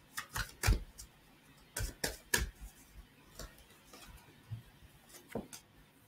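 Tarot cards being shuffled and handled: a run of sharp, irregular snaps and clicks from the deck, thickest in the first couple of seconds, then sparser and fainter.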